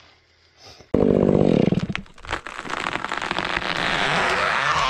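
A chainsaw starts running loudly about a second in, then gives way to a dense crackling and snapping as a snow-laden tree falls, its branches breaking and snow crashing down.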